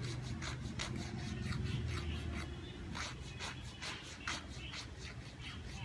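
A nail tool scraping fingernails in short repeated strokes, about three a second, over a low steady hum.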